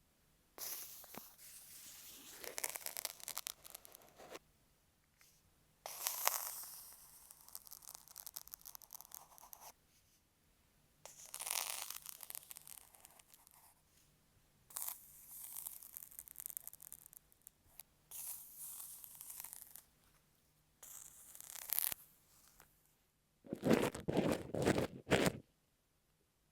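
Dressmaker's pins scratching over an earphone microphone, in separate scratchy strokes of one to three seconds with short pauses between. Near the end a louder, lower crunching starts: an ear pick working kinetic sand against the microphone.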